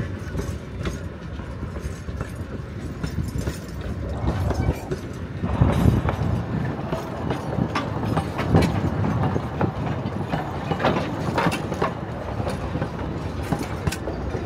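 Narrow-gauge steam train running by: a steady low rumble that grows louder about five seconds in, with sharp clicks and knocks from then on.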